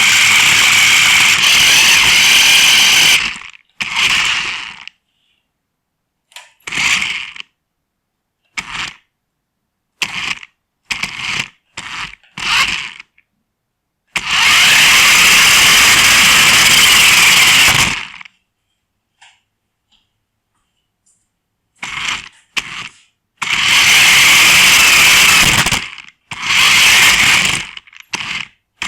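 Toy RC car's small electric drive motor and gears whirring in bursts as the throttle is pulsed on and off: several long runs of a few seconds and a string of short blips, with dead stops in between.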